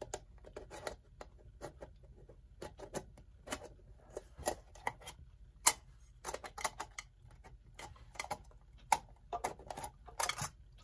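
Irregular light clicks and taps of small metal clock parts being handled, as the rim and glass are worked loose from the front of an old electric clock, with one sharper click about halfway through.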